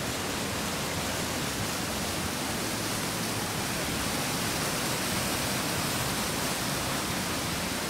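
A steady, even rushing noise that goes on unbroken with no change in level.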